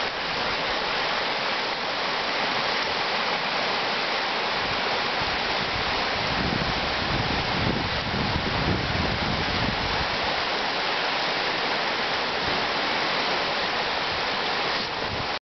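A river in flood after heavy rain, its fast water rushing steadily over rapids.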